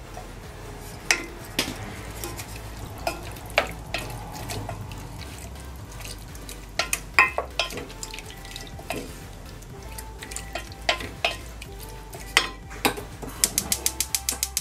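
Wooden spatula stirring pork in a stainless steel pot, with irregular clacks and scrapes of wood against the metal. Near the end comes a quick, evenly spaced run of clicks from a gas hob's igniter as the burner is relit.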